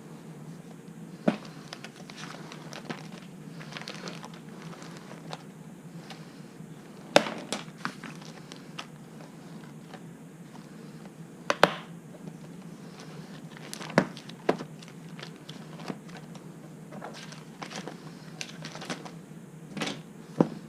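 Handling noise: scattered sharp clicks and knocks, about five of them standing out, over light rustling.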